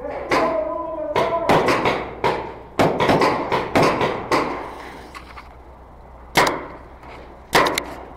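Paintball markers firing: scattered sharp pops, singly and in quick pairs, each echoing in a large hollow building.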